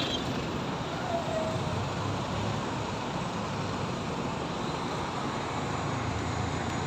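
Roadside street traffic: a city bus's diesel engine running close by, over a steady wash of road noise from passing vehicles.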